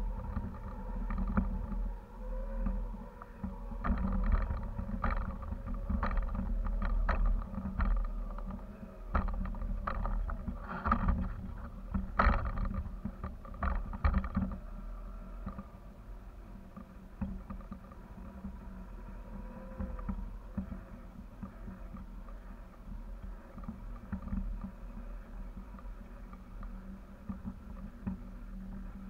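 Wind buffeting the microphone of a kite-borne camera: a steady low rumble, with a run of sharp clicks and rattles through the first half.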